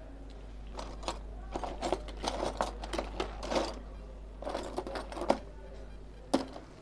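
Rapid small clicks and scratches from a phone circuit board and small tools being handled on a rubber repair mat, in two flurries, with a sharp tap about five seconds in and another near the end. A low steady hum runs underneath.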